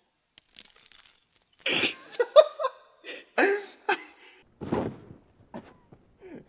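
A boulderer's loud effort grunts and yells as he pulls hard on the rock. About four to five seconds in, another grunt comes with a dull thud as he drops off the wall onto the crash pad.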